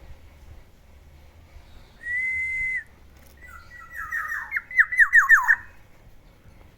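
Black-naped oriole singing: one steady, clear whistle about two seconds in, then a run of quick downward-slurred whistled notes that ends the phrase.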